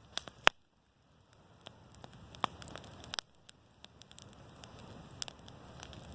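Wood campfire crackling, with irregular sharp pops and snaps, the loudest about half a second in.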